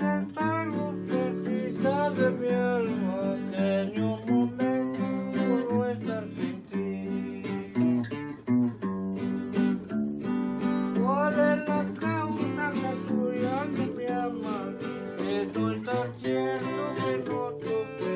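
Acoustic guitar played live, strummed chords under a bending melody line.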